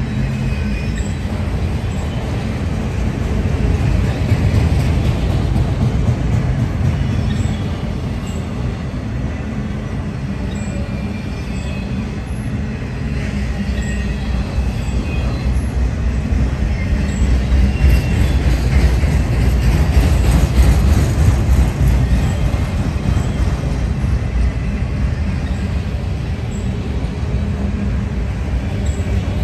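Autorack freight cars rolling past: a steady, loud rumble of steel wheels on the rails that swells and eases as the cars go by.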